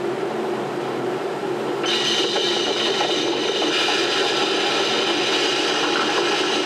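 Cartoon rockslide sound effect: boulders tumbling down a cliff face, a steady noise that gets louder and brighter about two seconds in. Heard through a television's speaker.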